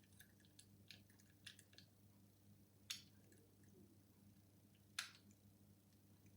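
Faint ticks and scrapes of a wire lever pick and tension tool working the levers inside a worn Legge 5-lever mortice deadlock, with two sharper clicks about three and five seconds in.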